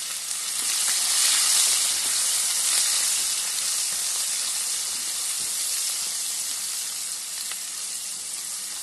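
Chopped onions sizzling in hot oil as they are stirred and sautéed with a spatula in the pan. A steady frying hiss, loudest in the first few seconds, that slowly eases as the onions soften.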